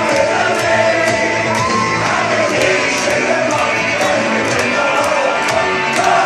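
An upbeat rock song with a steady beat played loud, with a crowd singing along and shouting over it.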